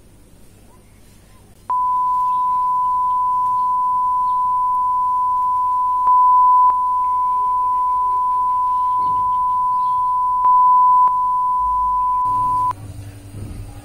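Censor bleep: one steady, high beep tone lasting about eleven seconds, laid over speech, with two brief louder stretches. It starts and stops abruptly.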